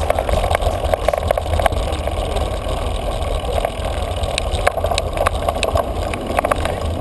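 Bicycle rolling over cobblestones: a steady rattle and rumble from the tyres and bike, with wind buffeting the microphone and scattered sharp clicks and knocks from the bumps in the second half.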